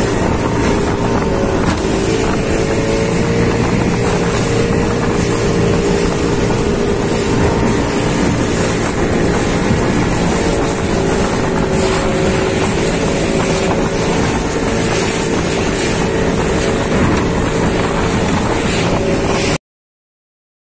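Small motorboat's engine droning steadily under way, with wind buffeting the microphone and water rushing past the hull. It cuts off abruptly near the end.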